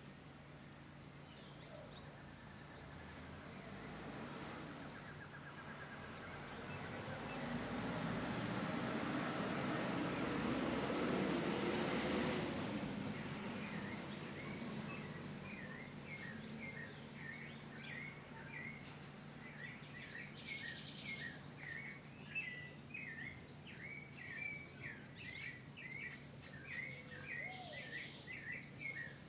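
Wild birds chirping and singing, with a rush of noise that swells and fades about halfway through. In the second half one bird repeats a quick chirping note many times over.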